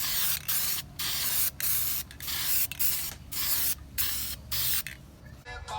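A quick series of short, sharp hissing spray bursts, about a dozen in five seconds, separated by brief gaps, with no motor whine under them.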